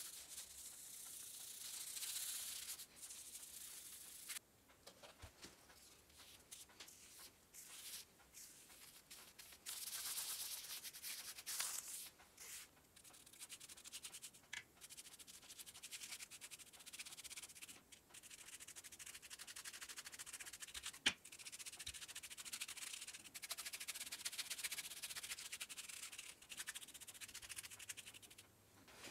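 Faint hand sanding: abrasive paper rubbed over a hard surface in spells of a few seconds with short pauses between them. A single sharp click about two-thirds of the way through is the loudest moment.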